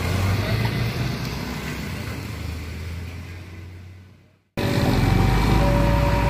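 Road traffic at a railway level crossing: vehicles passing, with a motorcycle crossing the rails, fading out to a brief silence about four and a half seconds in. Then a tanker truck's engine comes in with a low rumble as it rolls over the tracks.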